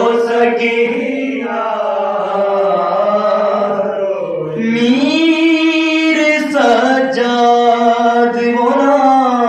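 Unaccompanied male voices chanting a Shia soz-marsiya elegy: a lead reciter at a microphone, with a group of men singing along, holding long, slowly bending notes. The phrase breaks briefly about halfway through, and a new one starts on a higher note.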